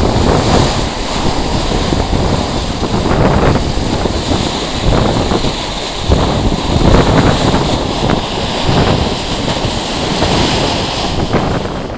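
A ship's bulbous bow pushes through open water, and the bow wave rushes and splashes against the hull, swelling and easing. Wind buffets the microphone throughout.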